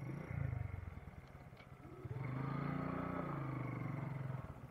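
Suzuki Gixxer's single-cylinder engine running at low revs as the motorcycle rolls slowly. About two seconds in it picks up under light throttle, the pitch rising a little and then easing back.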